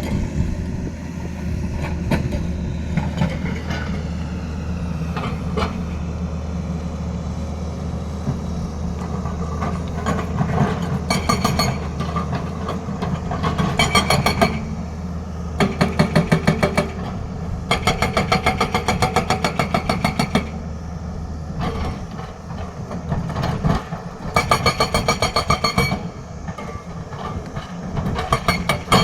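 Hydraulic breaker hammer on a Tata Hitachi excavator pounding in rapid repeated blows, in several bursts of one to three seconds, over the excavator's steady diesel engine.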